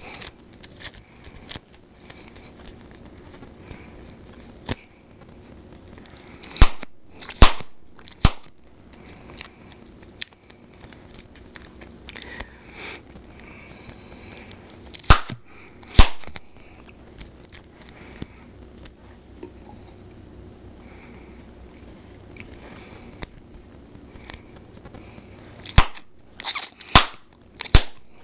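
Bubblegum popping and snapping at the mouth. Loud sharp pops come mostly in quick pairs, with a cluster of four near the end. Quieter gum clicks and chewing sound between them.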